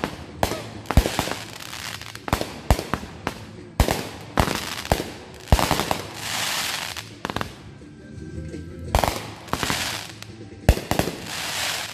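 Consumer aerial fireworks firing in quick succession: sharp bangs of launching and bursting shells, a few each second, with crackling, hissing sparkle between them.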